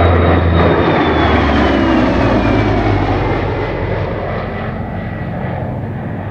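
Lockheed P-38 Lightning's twin Allison V-12 engines as the fighter flies past. A high whine falls steadily in pitch as it goes by, and the sound slowly fades.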